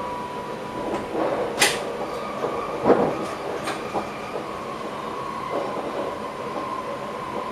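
Train running on the track, heard from inside its driver's cab: a steady running noise with a held whine, and a few sharp clicks and knocks between about one and four seconds in.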